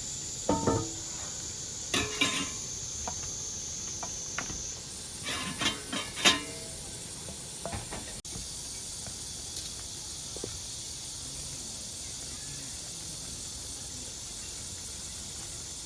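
A cooking pot and utensils clattering and clinking a few times in the first half, the loudest clink about six seconds in, over a steady high hiss.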